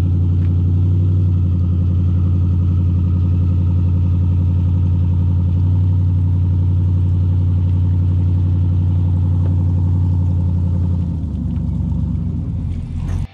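A pickup truck's engine running steadily with a low hum as it tows a boat trailer carrying a loaded kayak up out of the water. The hum eases off and wavers about eleven seconds in.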